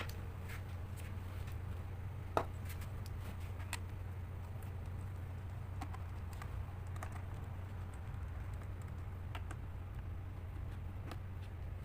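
Scattered light clicks and taps of a laptop being handled and worked on, one louder click about two and a half seconds in, over a steady low hum.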